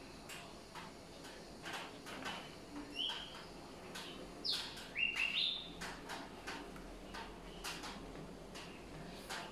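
Pages of a glossy booklet being turned and handled, a string of short papery rustles. A few short bird chirps break in about three to five seconds in; they are the loudest sounds.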